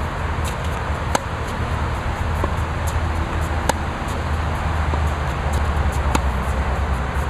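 Tennis racket striking the ball three times, about two and a half seconds apart, with fainter knocks in between, over a steady low rumble.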